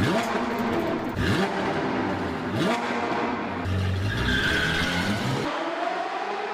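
A car engine revving up again and again over loud road and tyre noise, with a tyre squeal about four seconds in and a long rising rev near the end.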